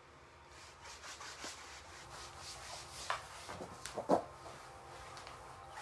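A dancer's hands, knees and feet brushing and sliding across a wooden floor, with light thumps about three and four seconds in, the second the loudest.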